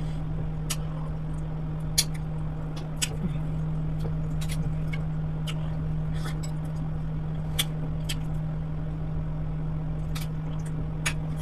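Eating sounds of fish soup and wheat swallow eaten by hand: scattered short, sharp wet mouth clicks and smacks, a few every second or two, over a steady low hum.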